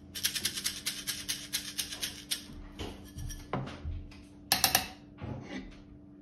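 Whole coffee beans shaken in a small glass: a quick, even rattling of about ten shakes a second for a couple of seconds. Scattered knocks follow, then a short burst of sharp clacks about four and a half seconds in.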